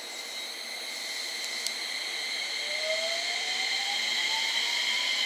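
JR West 227 series electric train's VVVF inverter and traction motors whining as it accelerates. Steady high tones sound throughout, and from about two and a half seconds in a single tone rises steadily in pitch. The whole sound grows louder.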